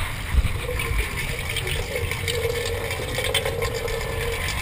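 Water running through a garden hose: a steady hissing flow with a held, hum-like tone from about half a second in until near the end, over a constant low rumble.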